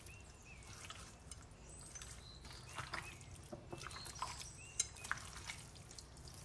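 Raw chicken being mixed by the cook in its spice marinade of roasted chilli powder and ground spices: faint, wet squelching with small, irregular clicks.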